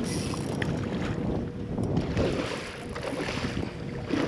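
Wind buffeting the microphone over water noise, in uneven gusts, with a faint steady hum underneath.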